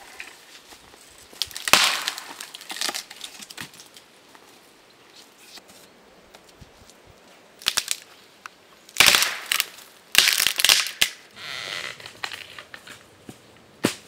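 Dry dead branch levered against a tree trunk and breaking, with sharp cracks and splintering crunches of wood. The loudest cracks come in a cluster from about nine to eleven seconds in, with a lighter crash about two seconds in and another near eight seconds.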